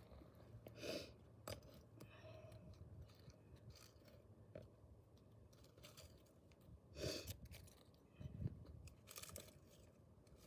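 Hand weeding tool and fingers scraping soil and tearing weeds out of the holes of cinder blocks: a few short, quiet crunching scrapes, the loudest about seven seconds in.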